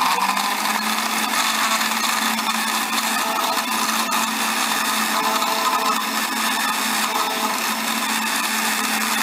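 Electric countertop blender running steadily at speed, with a constant motor hum, as it blends ice, milk and chocolate syrup into a milkshake.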